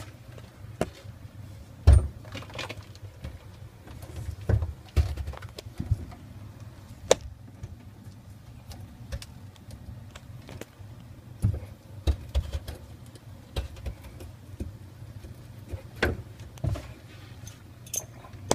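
Handling noise as the phone and hands move about inside a kitchen sink cabinet: scattered knocks, clicks and rubbing, the loudest thump about two seconds in, over a steady low hum.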